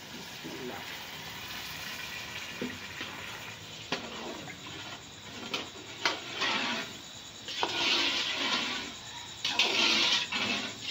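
Water poured in a stream into a metal pot of fried chicken masala, a steady splashing rush, then a metal slotted spoon stirring the liquid. The stirring gives swishing surges, the loudest in the second half, and the spoon knocks against the side of the pot several times.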